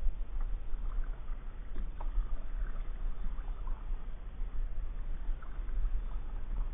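Kayak being paddled: the paddle stroking through the water with small splashes and drips, over a steady low rumble.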